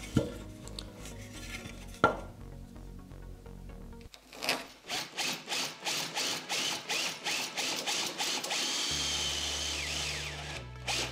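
Cordless drill boring into the end grain of a square wooden leg, running in short pulses about three a second at first, then steadily, winding down near the end. Before the drill starts there are a few light knocks and scratches as the hole is marked out with a pencil.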